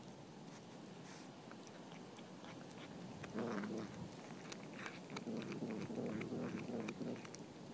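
Cat chewing on a rat it caught, biting and crunching with many short irregular clicks; the chewing gets louder about three seconds in.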